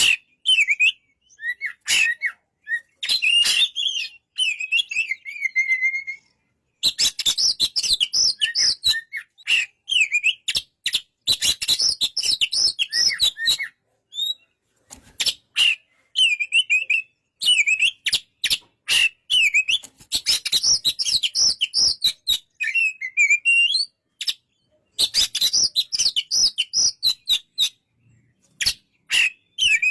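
Oriental magpie-robin singing: bursts of fast, varied whistled and chattering phrases, broken by short pauses.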